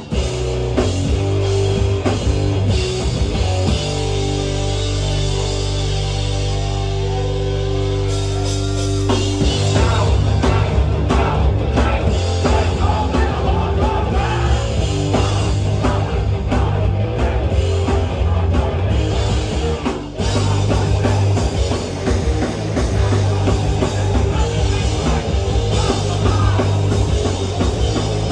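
Hardcore punk band playing live and loud, with distorted guitars and drums. A chord is held ringing for several seconds before the full band comes back in hard about nine seconds in, with a short break near twenty seconds.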